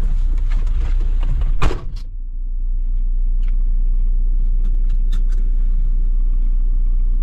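Steady low rumble of a car or van, with one sharp knock about one and a half seconds in, after which the sound turns duller and only the low rumble remains.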